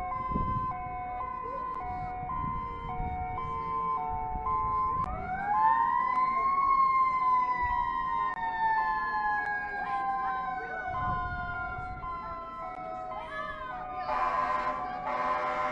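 Tsunami warning sirens sounding together. A high-low two-tone alternates for the first few seconds, then a wailing siren winds up about five seconds in and slowly falls away. A short burst of noise comes near the end.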